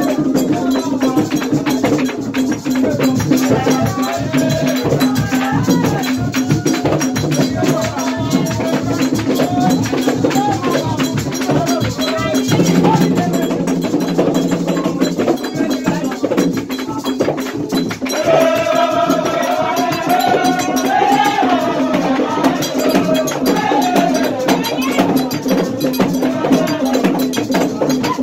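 Haitian Vodou ceremonial song: several voices singing over fast hand clapping and rattling percussion, with the singing growing louder and higher about two-thirds of the way through.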